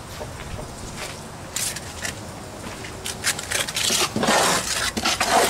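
Steel mason's trowel scraping and spreading cement on a cinder block wall: a single scrape about a second and a half in, then a run of gritty scrapes in the second half.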